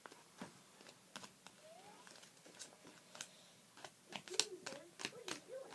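Faint scattered taps, clicks and rustles of a folded paper origami bird being handled and drawn on, busiest a little after the middle.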